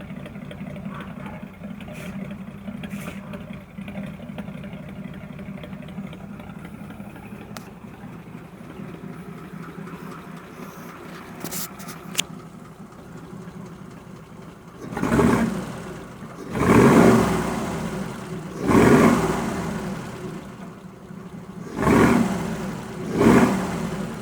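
1941 Ford pickup's flathead V8 idling steadily, then revved five times in its last ten seconds, each rev rising and falling back to idle. It is running cold with no choke on a carburetor that had been flooding, and runs alright.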